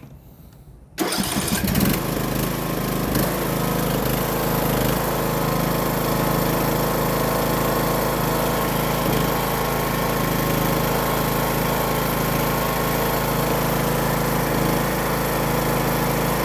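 Briggs & Stratton 17.5 hp riding-mower engine cranking and catching about a second in, then running steadily. This is its first start on fresh oil after an oil change.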